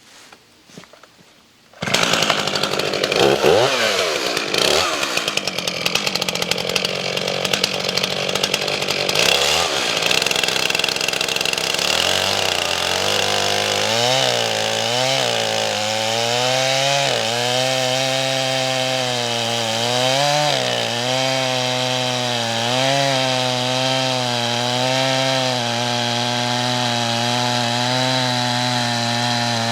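A two-stroke chainsaw comes in loudly about two seconds in and revs up and down a few times. From about twelve seconds it holds a steady high-throttle note that sags and recovers as the chain cuts through an oak log under load.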